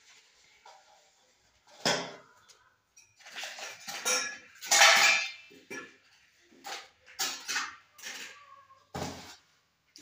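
Wooden spatula scraping and knocking against a stainless steel mixing bowl while cake batter is mixed, with irregular clatters of bowls and utensils on the counter; the loudest scraping comes about halfway through.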